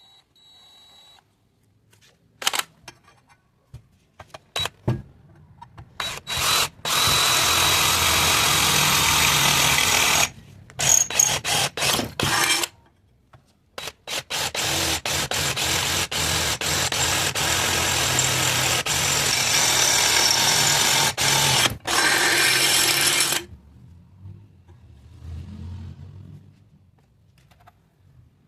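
Power tool running on metal in bursts: a few short blips, then a run of several seconds, a string of short bursts, and a long steady run of about nine seconds that stops near the end.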